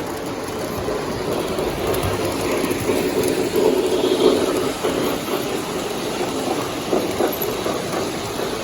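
O gauge model train running along the layout's track, a steady mechanical rumble that swells louder for a second or two in the middle as it passes, then eases off.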